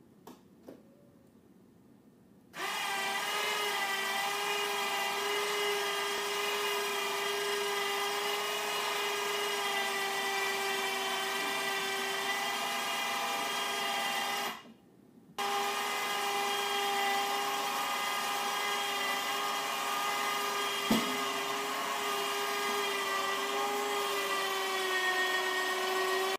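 A motor-driven tool runs at a steady, unchanging pitch. It starts about two and a half seconds in, cuts out for under a second around halfway, then runs again.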